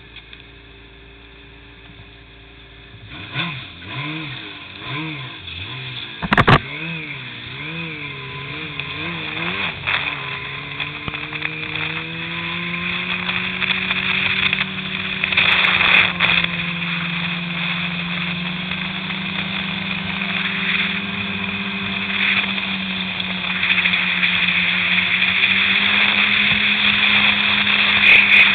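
Yamaha Apex snowmobile's four-stroke engine, low and steady at first, then the revs rise and fall in a wavering pattern for several seconds, with one sharp knock partway through. It then pulls away and runs steadily, slowly gaining speed and getting louder.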